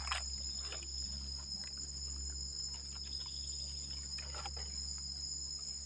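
A steady, high-pitched drone of insects in the forest, two unbroken tones, with a few faint rustles of dry leaves as a mushroom is plucked from the leaf litter.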